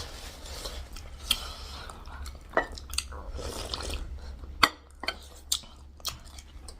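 Close-up eating sounds: chewing, with several sharp clicks of utensils against a bowl.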